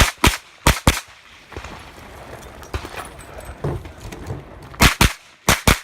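Rapid 9mm shots from a JP Rifles GMR-15 pistol-caliber carbine in quick pairs: four within the first second, a pause of about four seconds, then four more near the end.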